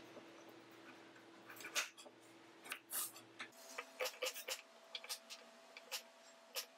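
Kitchen knife slicing through raw pumpkin and knocking down on a wooden chopping board: irregular sharp knocks, coming faster from about four seconds in.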